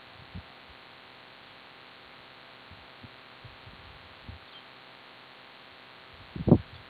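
Faint steady hiss with a few soft low thuds, then a loud low thump about six and a half seconds in: handling noise knocking against a body-worn camera.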